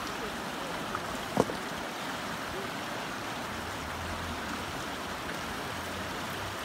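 Fast mountain river rushing over rocks, a steady wash of water noise, with one sharp knock about a second and a half in.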